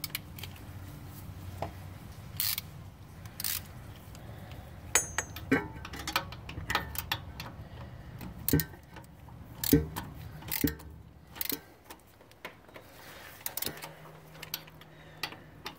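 Irregular metallic clicks and clinks of hand tools on the bolts of a turbo oil return line.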